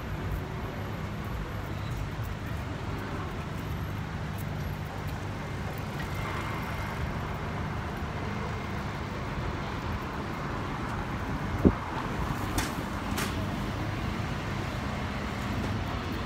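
Steady city street traffic noise: a low rumble of passing vehicles. About two-thirds of the way through there is a single short, sharp thump, the loudest moment.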